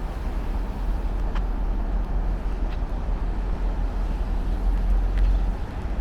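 Outdoor city street noise: a steady low rumble with an even hiss above it, and a few faint clicks about a second and a half, three and five seconds in.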